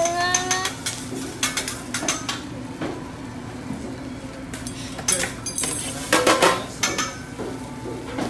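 Scattered clinks and clatter of utensils against ceramic dishes, with the loudest quick cluster about six seconds in, over a steady low hum.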